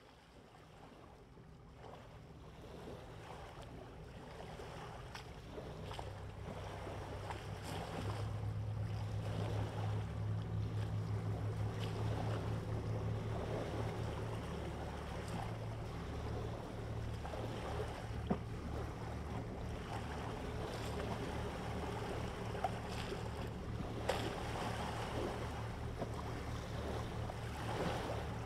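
Low, steady pulsing drone of a boat's engine with wind and sea noise, fading in over the first several seconds and then holding, with a few short knocks later on.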